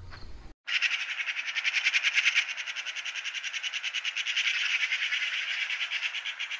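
High-pitched insect trilling, a fast, even pulsing that keeps going without changing pitch, starting abruptly just under a second in after a brief gap in the sound.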